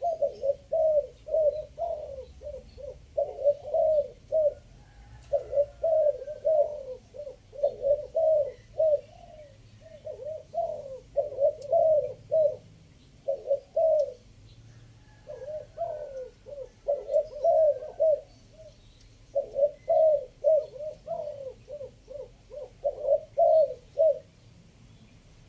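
Spotted dove cooing over and over in the three-note style, its phrases coming in quick clusters separated by brief pauses, stopping shortly before the end.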